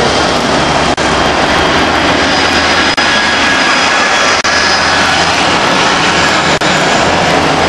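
Loud, steady engine noise of buses and a van passing close by, with a low hum underneath. The sound drops out briefly several times.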